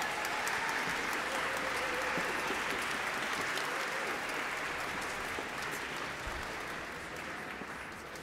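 Audience applauding, the clapping thinning and fading away over the last few seconds.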